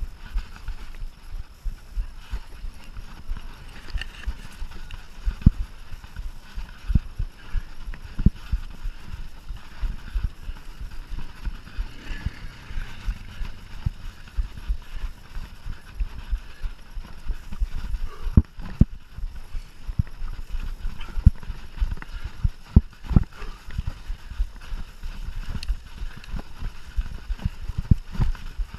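Mountain bike ridden hard over a rough cross-country trail: a continuous run of irregular knocks, thumps and rattles from the bike jolting over bumps, over a low rumble.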